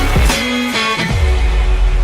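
Background music: an electronic track with guitar, its heavy bass coming in about a second in.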